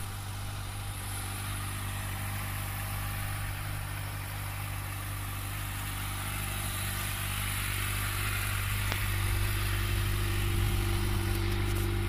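2013 Kawasaki Ninja ZX-6R's inline-four engine idling steadily, with one brief click about nine seconds in.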